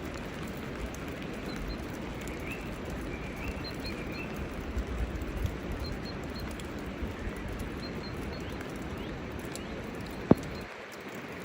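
Steady patter and hiss of rain, with faint bird chirps over it. A single sharp click about ten seconds in.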